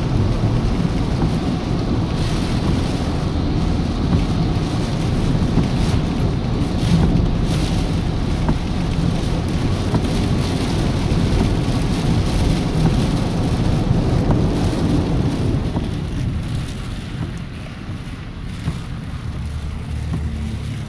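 Hurricane rain and wind beating on a moving car, with tyre noise on the flooded road, heard inside the cabin as a loud, steady low rumble. It eases over the last few seconds.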